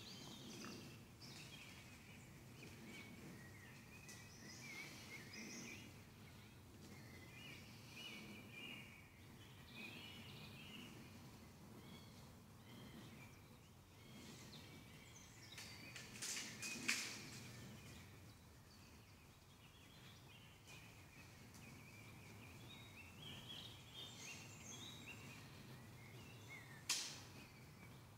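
Faint woodland birdsong, several small birds chirping and singing over quiet forest ambience. Two short sharp clicks stand out, one about seventeen seconds in and one near the end.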